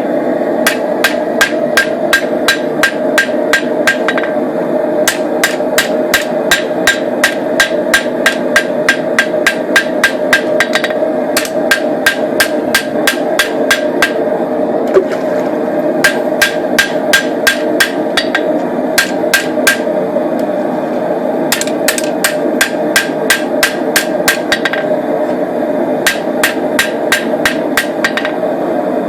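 Rapid hand-hammer blows on a hot knife blade on a wet anvil, at about four a second in runs with short pauses, each blow with a short ring. The water on the hammer and anvil quenches the blade's surface so the fire scale pops off. A steady background noise runs underneath.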